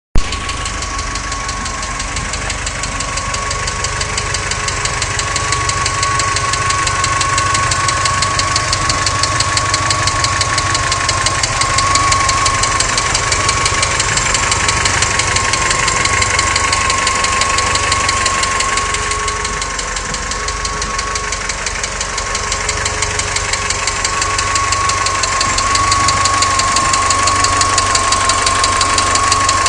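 VW Golf 3's 1.6-litre eight-valve four-cylinder petrol engine (AEE) running steadily with a fast, light rhythmic clatter from a hydraulic valve lifter, the fourth cylinder's lifter clattering on and off. A steady high whine runs underneath.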